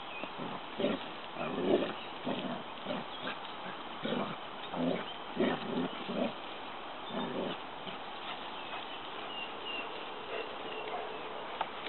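A dog making short low sounds in quick, irregular succession, about a dozen over the first seven or eight seconds, then quieter.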